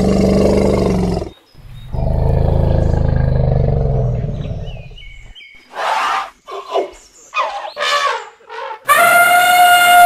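Asian elephant calling: two long, low roars, then a run of short squeaky calls, and near the end a loud, brassy trumpet.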